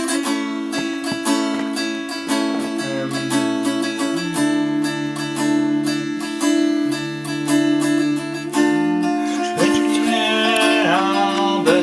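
Acoustic guitar strummed through a simple repeating four-chord progression, improvised.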